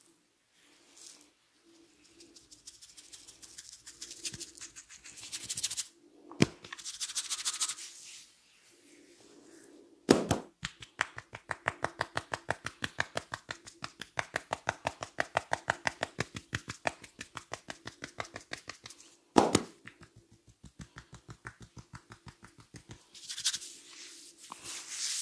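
A barber's hands tapping rapidly and evenly on a client's head during a head massage for about nine seconds, begun and ended by a loud sharp smack. Before this comes fast rubbing and scratching through the hair with a single sharp snap.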